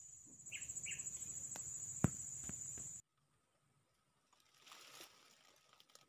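Steady high-pitched insect buzz with two short bird chirps near the start and one sharp click about two seconds in. The outdoor sound cuts off halfway through, leaving near silence.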